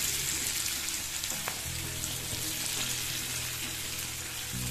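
Oil sizzling steadily in a frying pan as spice-coated fish pieces and sliced onions fry, stirred with a wooden spatula, with one light click about one and a half seconds in.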